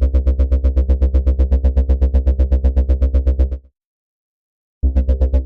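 Pulsating synth bass from Arturia Pigments: a deep super-unison bass note throbbing about ten times a second. It is held for about three and a half seconds, cuts off, and starts again near the end.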